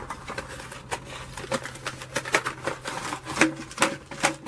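Hands handling cardboard-and-plastic box packaging: irregular clicks, taps and rustles, over a faint steady low hum.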